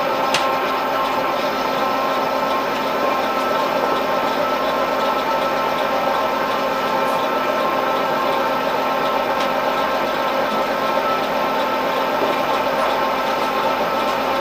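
Milling machine running steadily, its spindle turning a small single-point boring tool that trues up a drilled hole in 431 stainless steel, with a steady whine of several tones from the machine.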